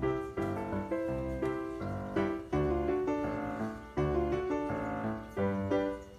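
Background music led by a piano-like keyboard, notes struck one after another in a steady melody.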